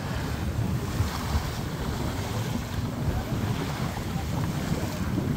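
Wind buffeting the microphone on a moving rigid inflatable boat, with water rushing along the hull: a steady, low rumble.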